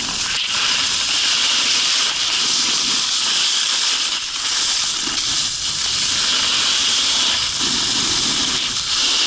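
Steady, loud hiss of a rider sliding over hard-packed snow, the edges scraping the snow surface, with small swells as turns are carved.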